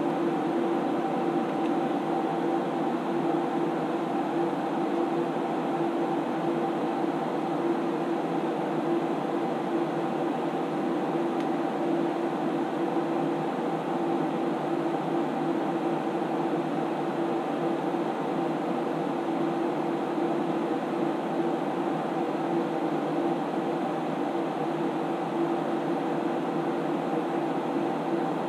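Steady hum and whir of an SGI Onyx2 computer's cooling fans running, with a constant low tone and a few fainter steady tones above it that do not change.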